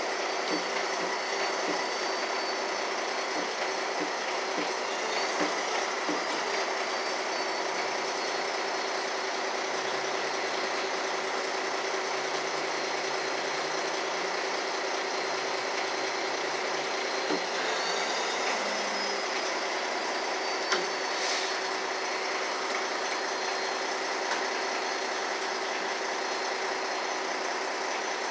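Large truck engine idling steadily, with a couple of light clicks about two-thirds of the way through.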